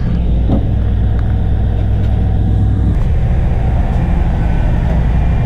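Fishing boat's engine running steadily, a low drone heard on the working deck; its tone shifts slightly about three seconds in.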